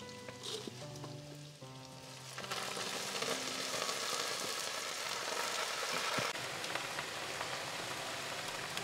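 Vegetables stir-frying in hot oil in a pan, a steady sizzle that grows much louder about two and a half seconds in.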